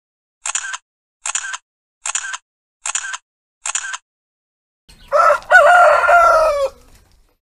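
Five camera-shutter clicks, evenly spaced about 0.8 s apart, then a rooster crows once, louder than the clicks.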